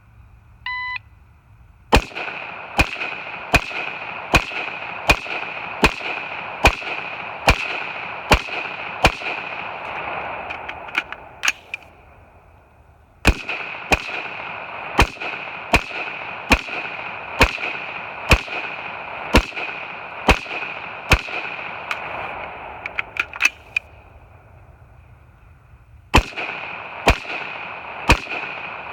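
A shot timer beeps once, then a carbine and a pistol fire steady strings of single shots, about one every 0.8 s. The shooting pauses twice for a couple of seconds, with a few light clicks in the pauses.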